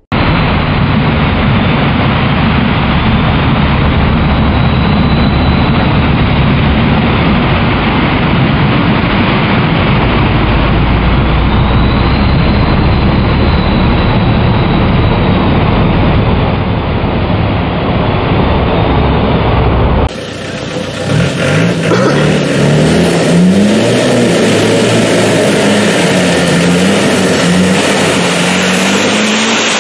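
Land Rover Defender 90 off-roader driving hard through mud, its engine under heavy load. About twenty seconds in the sound changes sharply, and the engine is heard revving up and down in uneven surges.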